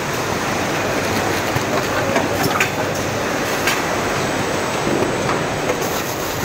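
Robotic packaging line running: a steady mechanical rattle from the roller conveyor and machinery, with sharp clicks and clacks now and then.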